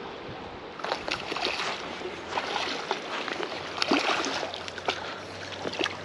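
A hooked smallmouth bass splashing and thrashing in shallow river water as it is reeled in on a spinning reel, a string of irregular splashes with the strongest about four seconds in.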